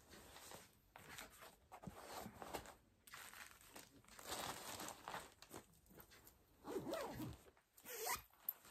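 Faint, intermittent rustling and crinkling of craft materials and their packaging being handled and sorted, louder around the middle.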